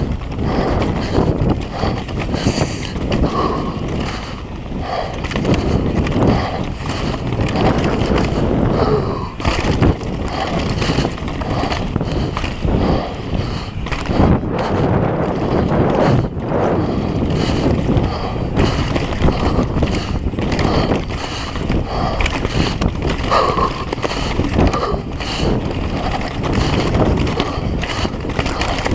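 Downhill mountain bike running fast over a dry, rocky dirt trail: wind buffeting the microphone, tyre noise, and the bike rattling with many short knocks over rough ground.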